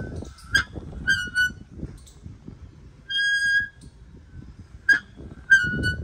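Borewell pulley, a car wheel rim turning on a tripod, squeaking as the plastic delivery pipe is hauled up over it: about six short high squeaks and one held squeal of about half a second, all at the same pitch, over a low rumble.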